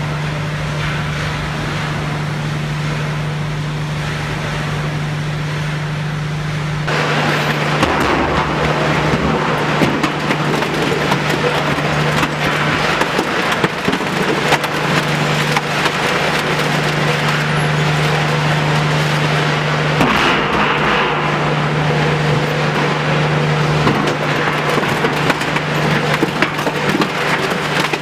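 Steady hum of plant machinery while a conveyor carries steel drums; about seven seconds in, a twin-shaft metal shredder starts tearing up a steel drum, a dense crunching and crackling of sheet metal over the hum, with sharp cracks here and there.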